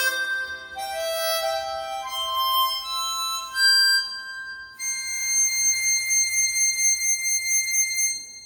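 Chromatic harmonica playing a slow melody through studio amplification and sound processing. It ends on one long held high note that fades away near the end.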